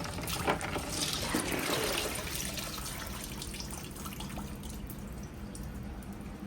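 Water splashing and dripping, busiest in the first couple of seconds and then settling to a steadier trickle, as plucked chickens are lifted out of an ice-water bath.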